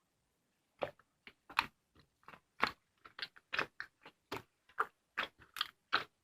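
A run of short crunchy clicks or knocks, irregularly spaced, about two or three a second.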